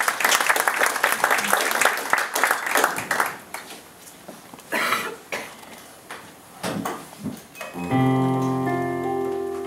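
Audience applause that dies away over about three seconds, then about eight seconds in an electronic stage keyboard sounds a chord that is held and slowly fades.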